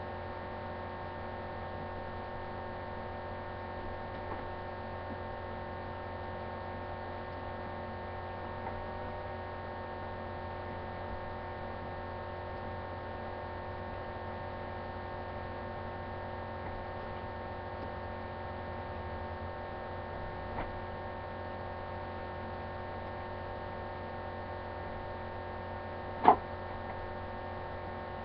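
A steady hum made of several held tones, with a few faint ticks and one sharp click near the end.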